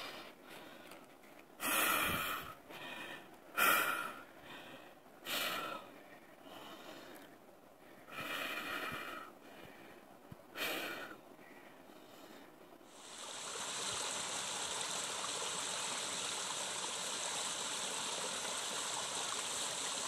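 A man breathing hard and gasping, out of breath from a long uphill hike, in five or six loud separate breaths. About thirteen seconds in it changes to the steady rush of a small stream running over rocks.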